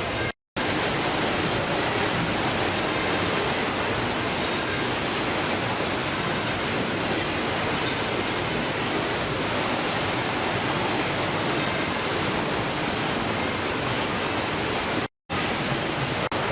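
Steady rushing noise, even across low and high pitches, broken by two brief dropouts, one just after the start and one near the end.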